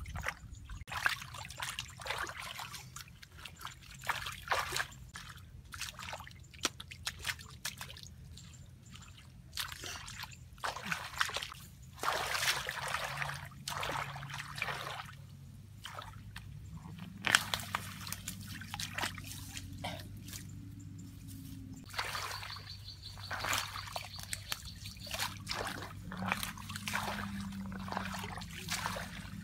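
Hands splashing and sloshing in shallow muddy water, with irregular splashes and trickles of water running off.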